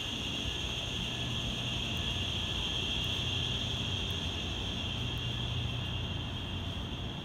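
City ambience: a low, steady rumble of distant traffic under a constant high-pitched hiss.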